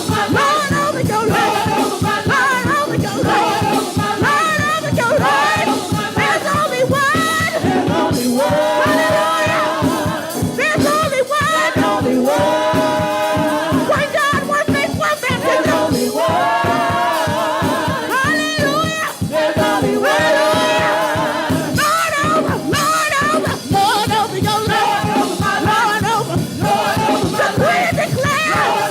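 Gospel praise music: a church praise team singing together over a live band with a steady beat.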